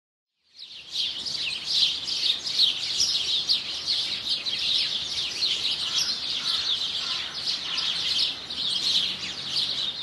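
Many small birds chirping and singing together, a dense chorus of quick, high chirps that fades in about half a second in.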